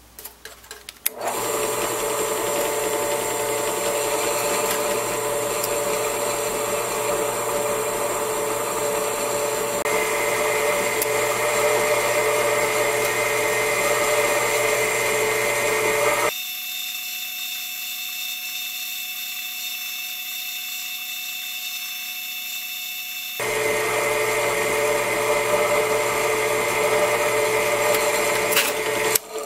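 Benchtop drill press running steadily while a tiny 1/32-inch bit, lubricated with cutting oil, slowly drills an orifice hole into galvanized steel pipe. The motor starts about a second in, and the sound turns thinner for several seconds past the middle.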